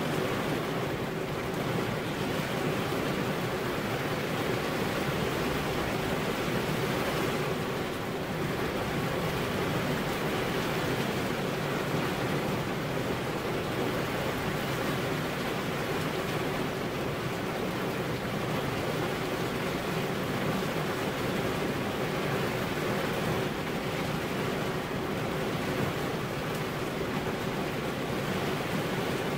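Heavy rain falling steadily, an even hiss of rainfall with no breaks or thunder.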